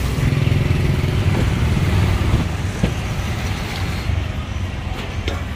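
Street traffic: a motor vehicle's engine running close by, a steady low rumble, with a couple of light clicks.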